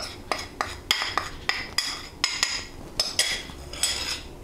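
A metal spoon clinking and tapping against a small dish and a glass mixing bowl while salt and pepper are scraped into flour: repeated light knocks, irregular, about two or three a second, each with a brief ringing tone.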